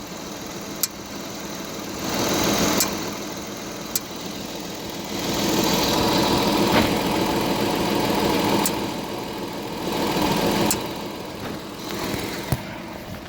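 Audi A7 standing still with the engine idling, and a sharp single knock about every two seconds, seven in all, from the driver-side wheel or suspension area. The knock comes only when the car is stationary, and its cause is unknown. A rushing sound swells and fades several times over the idle.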